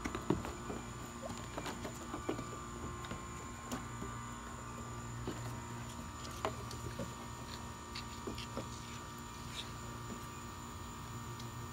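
Calves sucking and slurping at a plastic milk-feeding bottle and licking at hands: a run of scattered small wet clicks and smacks with an occasional sharper knock, over a faint steady hum.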